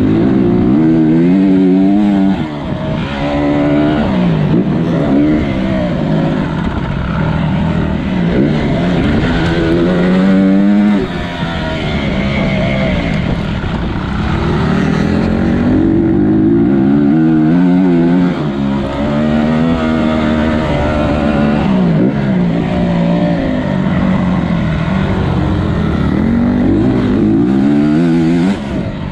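Motocross bike engine heard from on board, its revs climbing and falling again and again as the rider accelerates, shifts and backs off, with a few short lulls when the throttle closes.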